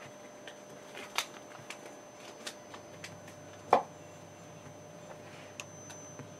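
Low steady hum with a few isolated sharp clicks, about a second or more apart, the loudest nearly four seconds in.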